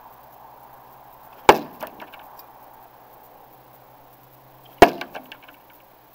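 Two throwing knives striking a wooden plank target, about three seconds apart. Each hit is a sharp, loud impact followed by a few quick smaller clicks.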